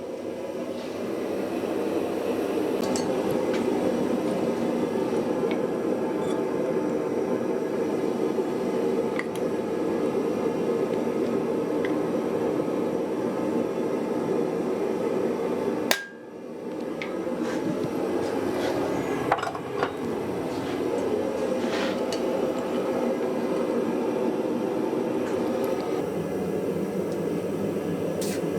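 A forge running steadily while a steel piece is brought back up to heat, with a few light metallic clinks. The noise breaks briefly after a sharp click about halfway through, then builds back up.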